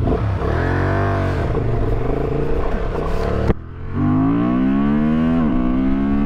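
Honda Transalp 750's parallel-twin engine under hard acceleration on the road. Its revs swell and fall, drop off sharply about three and a half seconds in, then climb steadily in pitch as the bike pulls hard, with a quick dip for an upshift about five seconds in.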